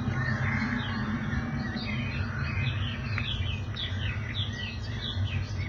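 Many small birds chirping and twittering in quick short calls, over a steady low rumble.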